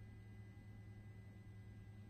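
Near silence: a faint, steady low hum with a thin high tone above it, the background of an aircraft's cockpit audio feed between the pilot's remarks.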